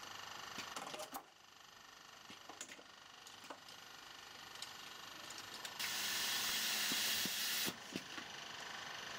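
Automatic print-and-apply labelling machine running with a steady hum and scattered mechanical clicks. About six seconds in, a loud hiss of air lasts just under two seconds and ends with a click.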